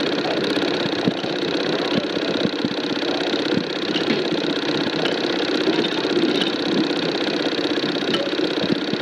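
8mm film projector running: a steady, rapid mechanical clatter with fine even ticking.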